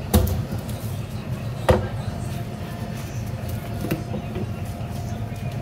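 Knife knocking on a plastic cutting board while cutting through a halibut's tail: two sharp knocks about a second and a half apart, then a softer one later, over a steady low hum.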